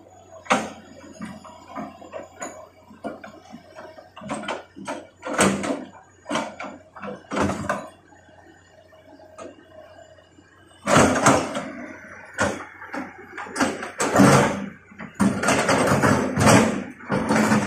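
Hitachi hydraulic excavator pushing into brush and trees: irregular cracking and crashing of snapping branches and vegetation, thickest in two bursts in the second half, over a faint steady low engine hum.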